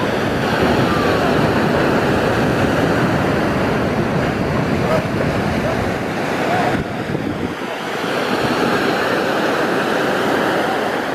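Shorebreak surf breaking and washing toward the beach, a steady rush of water noise, with wind buffeting the microphone. The low wind rumble eases a little after about seven seconds.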